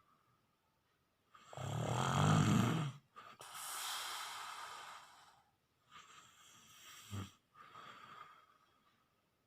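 Snoring: one loud, low snore about two seconds in, followed by a long breathy hiss of breath, then softer breathing with a brief short snore near seven seconds.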